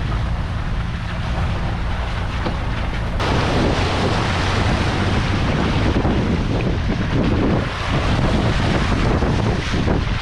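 Toyota 4x4 driving slowly over a wet, rocky trail, its engine giving a steady low drone. About three seconds in the sound changes abruptly to a loud rush of wind on an outside-mounted camera's microphone, mixed with the uneven rumble of tyres over stones and puddles.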